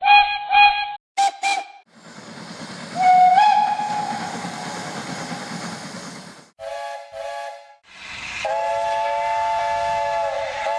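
Steam locomotive whistles with escaping steam hiss: two short toots, then a single whistle that steps up slightly in pitch and fades into hiss, then two short chime toots and a long, steady multi-note chime blast near the end.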